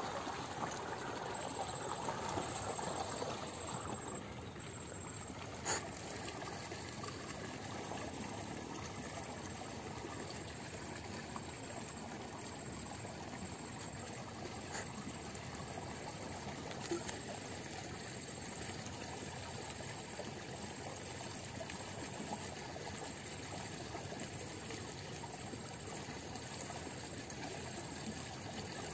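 Steady trickling of running water, with one short click about six seconds in.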